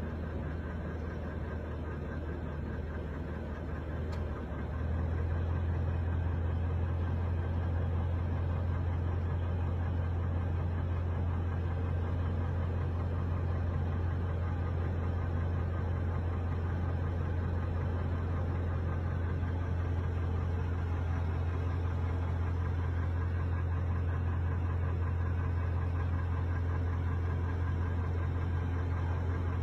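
A steady, unbroken low hum that steps up in level about five seconds in and then holds even, like a running motor.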